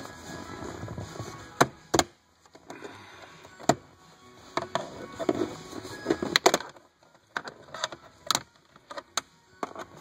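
Plastic retaining clips of a rear center-console trim panel clicking and snapping as the panel is pried loose with a plastic trim tool: a string of sharp, irregular clicks and knocks.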